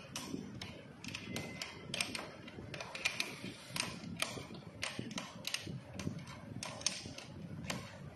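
Irregular metallic clicks and taps, one to three a second, from a wrench working the rear axle nut of an electric bike.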